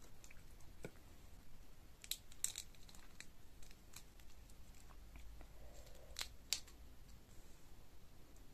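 Shell of a sauce-coated boiled shrimp cracking and tearing as it is peeled by hand, with sharp crackles about two seconds in and again twice about six seconds in.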